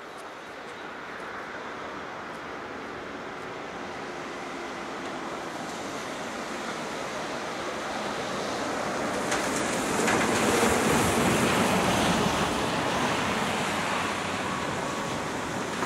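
SU45 diesel locomotive hauling a passenger train, approaching from a distance: a broad rumble of engine and wheels that grows louder over the first ten seconds or so, then eases slightly near the end.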